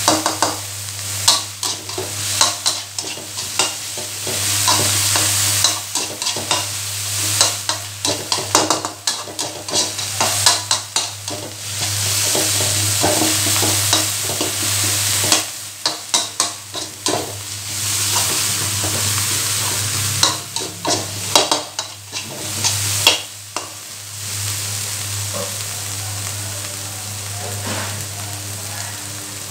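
Metal spatula scraping and knocking against a wok while a pounded chilli, garlic and shallot paste is stir-fried in sizzling oil. Near the end the stirring stops and only the steady sizzle is left.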